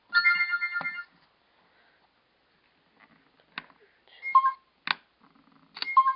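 Canon FS100 camcorder's power-on chime: several high electronic tones together, lasting about a second. Later come a few clicks of its buttons and two short electronic beeps.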